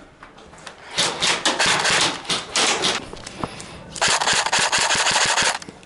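Airsoft gun firing on full auto in two long bursts of rapid, evenly spaced clicks, the second starting about four seconds in.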